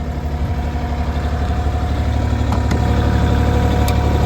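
IHI 35NX mini excavator's diesel engine running steadily, growing gradually louder.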